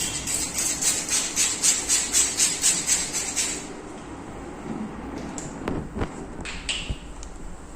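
Rapid rhythmic scraping strokes on skin, about four or five a second, that stop after about three and a half seconds; a few faint clicks and knocks follow.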